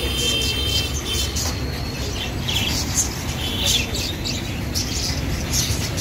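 A caged flock of budgerigars chirping and chattering, many short high chirps and brief trills overlapping throughout, over a steady low rumble.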